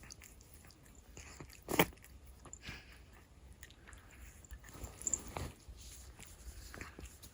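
A large domestic cat snoring in its sleep: soft, raspy breaths rise and fall every second or two. One sharp click comes about two seconds in.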